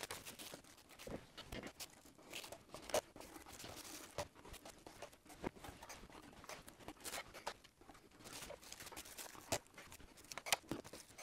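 Plastic bags crinkling and masking tape being torn and pressed down while overspray masks are taped over a model rocket. The sound is faint, rapid, irregular crackling and ticking.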